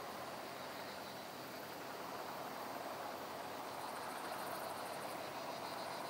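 Summer meadow ambience: a steady rushing hiss of breeze through grass and trees, with an insect chirring in fast pulses for a second or so at a time in the second half.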